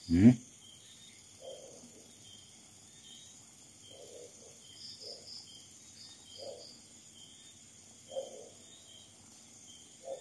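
Crickets chirping in a steady run of short repeated pulses, with soft low sounds every second or so. A short, loud sound falling in pitch comes right at the start.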